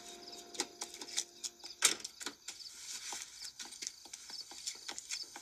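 Irregular light clicks and taps, with one sharper knock about two seconds in.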